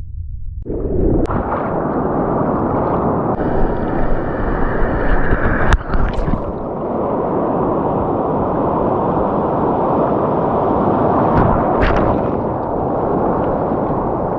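Steady rush of surf and moving water at the shoreline, loud and close on the microphone, with a few sharp knocks of handling, the clearest about six seconds in.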